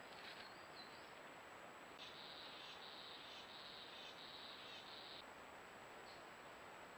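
Faint forest background over the steady hiss of a trail camera's microphone. A high, rapid trill from an unseen animal runs for about three seconds in the middle, and a couple of brief high chirps follow near the end.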